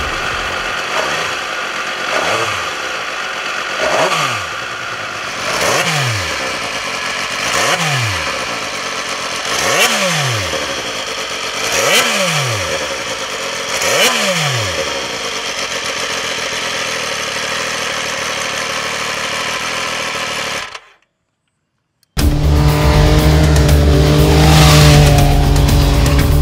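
Sport motorcycle engine, six or seven sharp notes about two seconds apart, each dropping quickly in pitch, then a steadier run. The sound cuts out for about a second near the end and comes back louder and steady.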